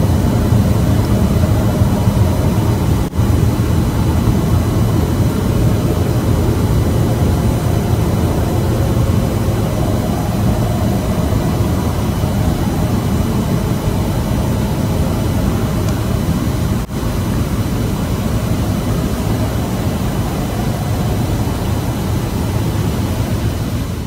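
A loud, steady, low rumbling drone with a hiss above it: the unexplained 'weirdest sound' recorded coming from the sky. It drops out very briefly twice, about three seconds in and again near seventeen seconds.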